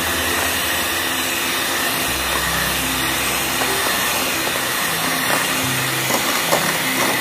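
Electric hand mixer running steadily, its twin beaters whisking eggs and caster sugar in a bowl.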